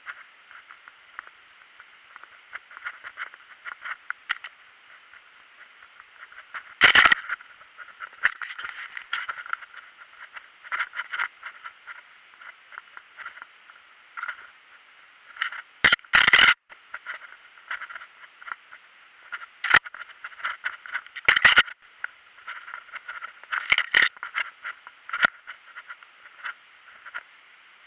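Mountain bike rolling over a trail of raised paving slabs and roots, with a steady rattle of the bike and camera mount. A handful of harder knocks come as the wheels jolt over slab edges and roots.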